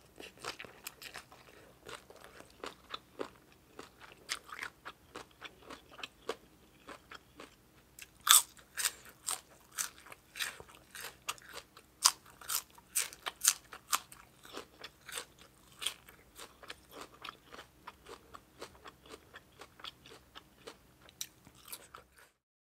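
Close-up eating sounds: wet chewing and crisp crunches of biting into raw green vegetables with spicy papaya salad. The sharpest crunches come about eight seconds in and again around twelve to fourteen seconds, and the sound cuts off just before the end.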